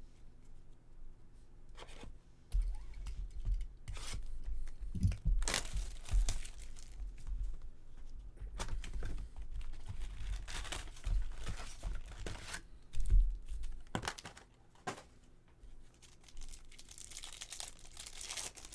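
Tearing and crinkling as a box of baseball cards is ripped open, its wrapping and packs torn and crumpled, with low handling bumps. The rips come in a dense run for about ten seconds, then give way to quieter rustling near the end.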